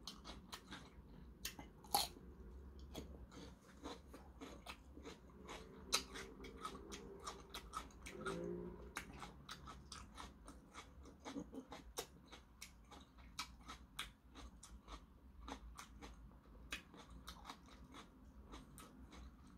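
Raw cucumber being bitten and chewed with the mouth close to the microphone: a faint, irregular run of crisp crunches and clicks.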